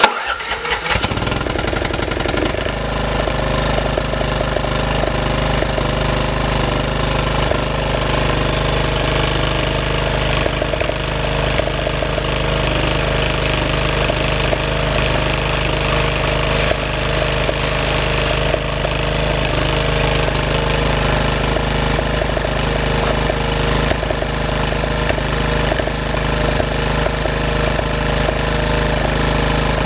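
Craftsman RER 1000 riding mower's 420 cc overhead-valve engine starting on choke. It catches within about a second and fires right up after sitting a week or two, then runs steadily.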